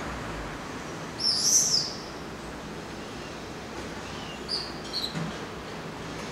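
High-pitched calls of young gulls: one louder, drawn-out call about a second in, then a few short, fainter calls near the end.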